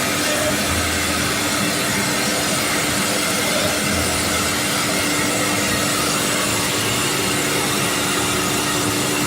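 Four-spindle CNC router running steadily: one steady low tone over an even rush of machine noise, with no breaks or changes.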